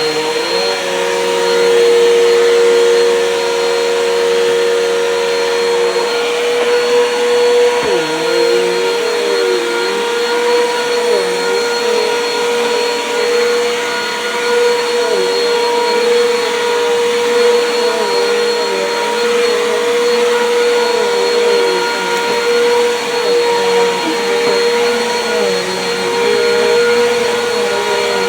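Bissell PowerForce Compact Turbo upright vacuum cleaner running on bedroom carpet, a steady motor whine with a pitch that dips and wavers as it is worked across the floor.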